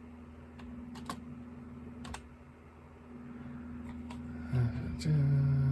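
A few sparse clicks from working the computer over a steady low electrical hum, then near the end a man hums a low, held 'hmm' for over a second as he thinks.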